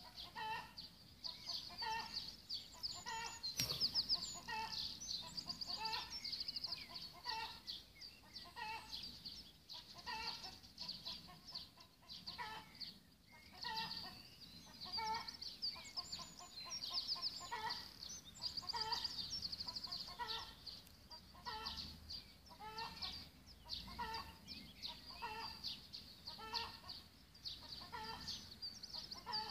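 Birds calling: high, rapid trilled song runs on and off throughout, over a short, lower call note repeated about once a second.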